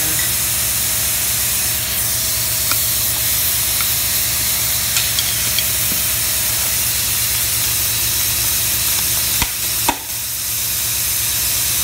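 Electric demolition hammer with a chisel bit running steadily, hammering apart a Schedule 40 pipe form set in a concrete floor. Near the end come two sharp knocks and a brief break in the hammering.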